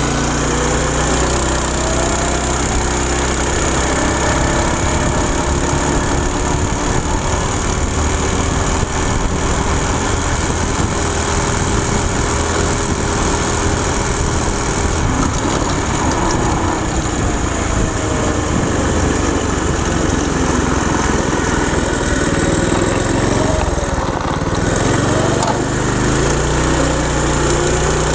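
Small single-cylinder go-kart engine running hard through a torque converter drive. Its pitch climbs and falls as the kart speeds up to about 36 mph and slows again.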